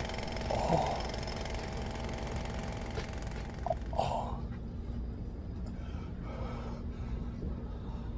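A man breathing through his mouth with a few short gasps while a nasal swab for a COVID-19 test is held up his nose, over a steady low hum.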